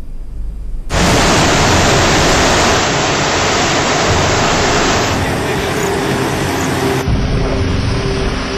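Fast-flowing floodwater rushing, a loud even noise that starts about a second in and changes abruptly a few times, with a faint repeated tone in the last few seconds.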